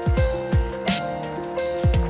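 Lo-fi hip-hop style background music: held chords over a steady beat of deep kick drums that drop in pitch, with sharp snare and hi-hat hits.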